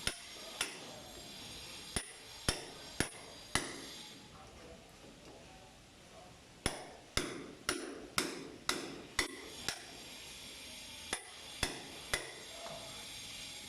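Hammer blows: sharp strikes with a short ring, in three runs of about two a second with pauses between.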